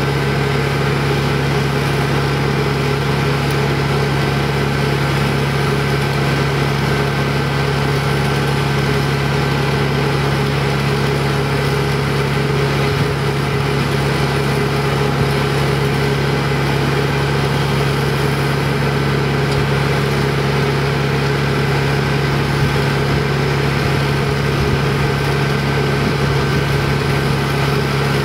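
An engine idling steadily at one even pitch, a constant low hum with fixed higher tones over it.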